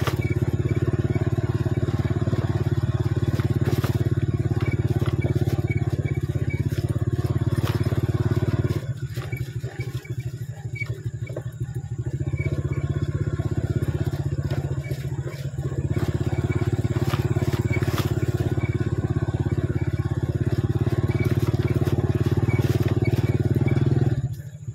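Motorcycle engine running as it rides along a dirt track. It eases off for a few seconds about nine seconds in and again briefly around fifteen seconds, then pulls again, and cuts off just before the end.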